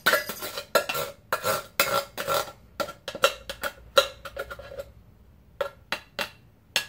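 A utensil scraping and knocking against the inside of a metal soup can, emptying out the last of the canned gumbo: a quick run of ringing clinks for about four seconds, then a few scattered knocks.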